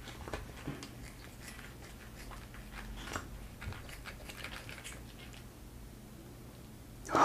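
Kitchen scissors snipping and working through a live fat innkeeper worm (penis fish), a scattered run of small, wet clicks and snips, with one louder burst right at the very end.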